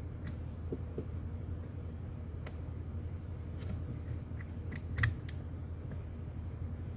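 A few light clicks and taps of small carburetor parts being handled during reassembly, the sharpest about five seconds in, over a steady low hum.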